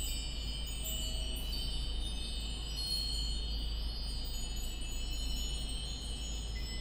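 Many Nambu cast-iron wind bells (furin) ringing together in a breeze, their high, clear tones overlapping and chiming continually.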